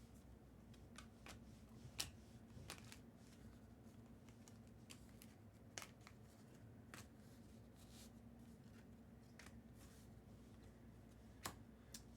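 Faint handling of Bowman Chrome trading cards as they are flipped through, giving a dozen or so short, sharp clicks and ticks spread irregularly over a low steady hum.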